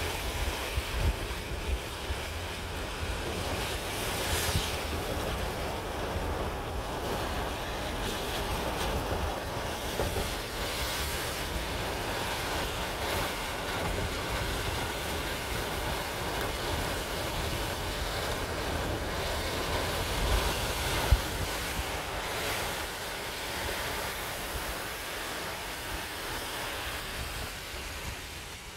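Steady rain and gusting wind in a thunderstorm, with wind buffeting the microphone in low rumbling gusts. A single brief knock sounds about two-thirds of the way through.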